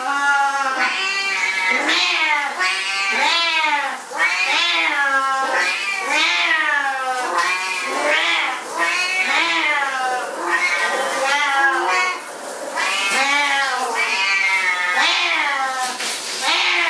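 Siamese cats meowing loudly and without a pause, one long rising-and-falling call after another, a little more than one a second.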